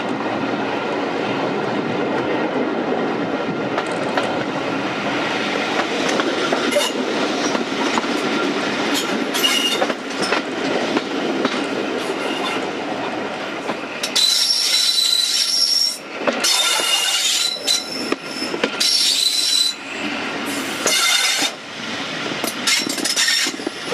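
Railway coach wheels running steadily on the rails. From about halfway, as the train takes a curve, the wheel flanges squeal with high notes that come and go several times.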